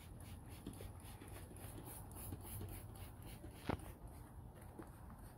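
Faint, quick scrubbing strokes of a brush on a welded expanded-metal kennel floor, about five a second, with one sharp knock partway through.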